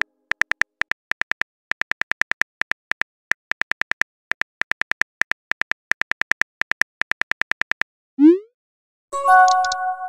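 Simulated phone keyboard typing sounds: rapid clicks in bursts as a text message is typed. About eight seconds in, a short rising swoosh as the message is sent, then a brief chime of several tones about a second later.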